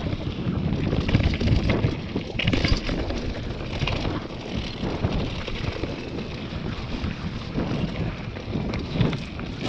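Wind buffeting the microphone on a mountain bike descending a dirt singletrack, over the crunch of tyres on dirt and gravel and the bike rattling over bumps.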